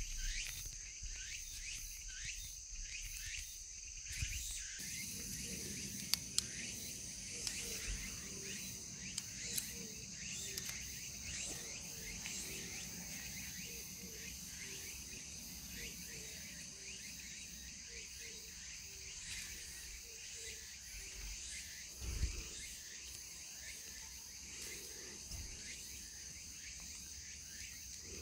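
Chorus of crickets and other insects chirring steadily: a continuous high trill with many short overlapping chirps. A few sharp clicks come about six to ten seconds in, and a low thump a little past twenty seconds.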